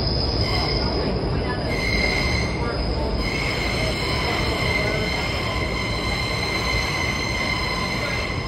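Subway train running through a tunnel, heard from inside the car: a steady loud rumble of wheels on rail with a high-pitched wheel squeal held over it, growing stronger about two seconds in.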